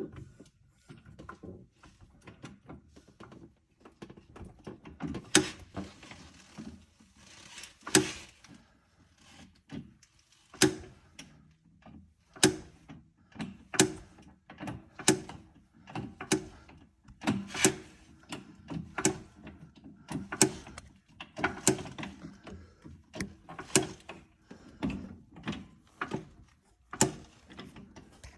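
LG GT2 coilover clicking as the axle is raised and lowered slightly with a jack: a run of sharp clicks, roughly one every second or so, from about five seconds in. The clicking comes from a dry coilover and stops once it is lubricated.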